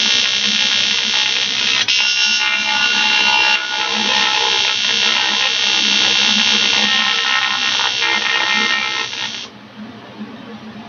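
AC TIG welding arc from an Eastwood TIG 200 AC/DC welder on thick 6061 aluminum: a loud, steady buzz that cuts off about nine and a half seconds in, leaving a fainter hiss.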